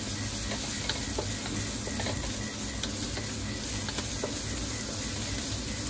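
Chopped onion, garlic and ginger sizzling in a little olive oil in a stainless-steel wok over raised heat, sautéing toward golden brown. A wooden spatula stirs them, with light scrapes and taps on the pan now and then.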